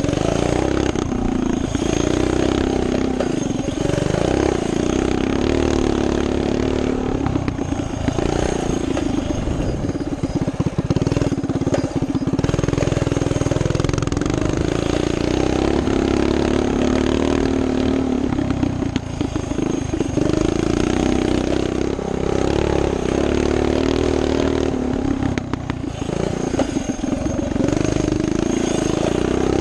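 Coleman CT200U minibike's small single-cylinder four-stroke engine running hard while riding, its pitch rising and falling with the throttle, dipping briefly a few times, along with wind rush and rattles over bumps.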